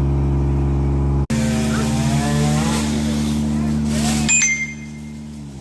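A motor running steadily at a low idle, with a momentary break about a second in and a drop in level near the end.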